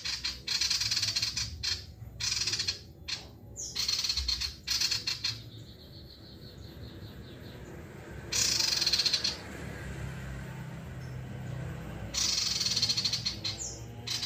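Male sirtu, a small caged songbird, singing at full tilt in rapid high trills. The song comes in about five bursts of one to two seconds each, with short pauses between.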